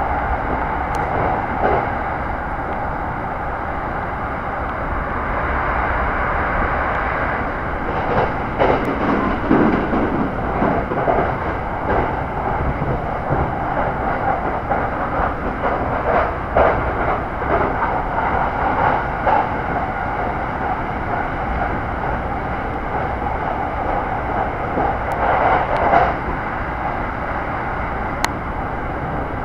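Commuter electric train running along the line, heard from inside the passenger car: a steady rumble of wheels and motors, with irregular clattering over the track now and then.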